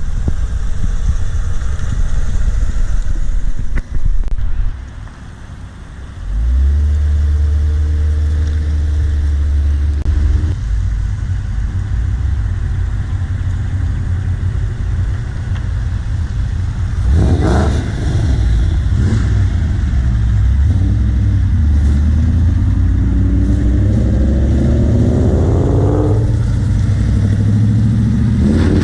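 Car engines running as cars roll past, a heavy low rumble throughout. A short lull comes about five seconds in, and near the end an engine revs up with rising pitch.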